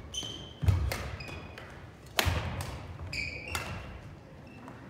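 Badminton play on a gym court: two loud sudden thuds about a second and a half apart, with several short shoe squeaks on the court floor around them.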